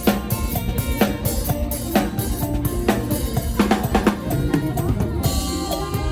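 Drum kit driving a lam phloen groove in a mor lam band: kick and snare strokes about once a second with rimshots, under held keyboard and bass notes. About five seconds in, a cymbal crash rings out.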